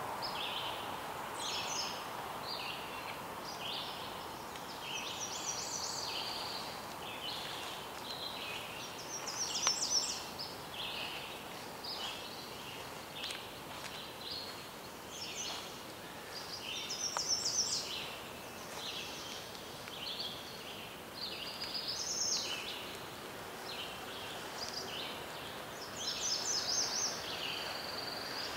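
Birds singing: short chirping and trilling phrases repeated every second or two, over a steady faint background hiss.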